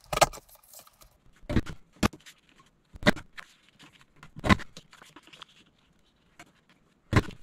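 Creative Memories Snow Capped Mountains border punch pressed down on cardstock, cutting a mountain border strip: six sharp strokes, irregularly spaced, with faint paper rustle in between as the sheet is slid along for the next punch.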